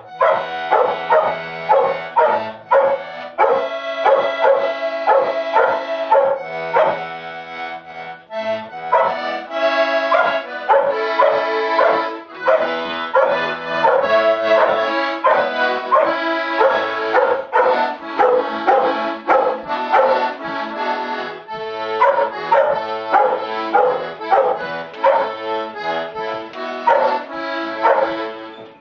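An accordion playing a tune in rhythmic, pulsing chords while a dog howls along to the music.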